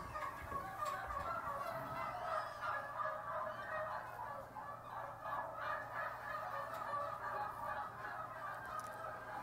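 A flock of turkey hens calling in a barn: a dense chatter of many overlapping calls, heard over a low steady hum.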